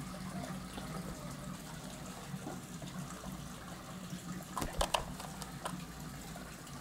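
A few quick soft flutters and knocks about two-thirds through as a hawk flaps its wings and settles on a scale perch, over a steady low background noise like running water.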